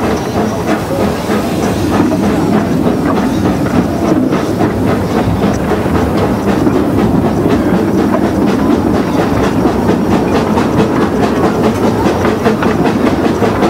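Quarry Hunslet 0-4-0 tank steam locomotive under way with its train, heard from aboard: a steady rhythmic exhaust beat with steam hiss and wheels clicking along the rails.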